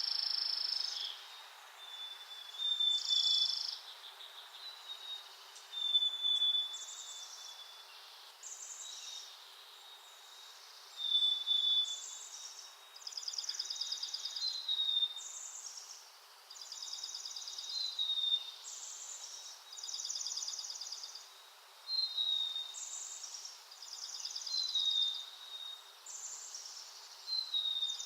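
Small songbirds calling: short, high, buzzy trills every second or two, alternating with brief high chirps, over a faint steady outdoor hiss.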